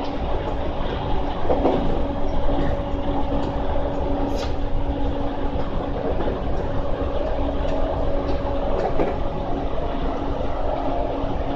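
Running noise inside a JR East E231 series suburban electric train, fitted with a replacement VVVF inverter, at steady speed. Wheels rumble on the rail under a steady low hum, with a few brief clicks from the track.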